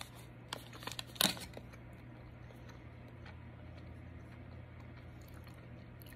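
A few brief crinkles from the plastic fruit-snack pouch being handled in the first second and a half, then quiet room tone with a low steady hum.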